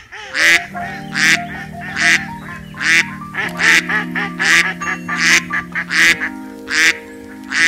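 Duck quacking loudly and repeatedly, about one quack every second, over background music with long held notes.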